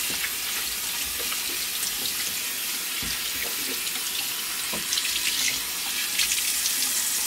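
Water running steadily from a tap into a sink, with small splashes as a hand is rinsed under the stream.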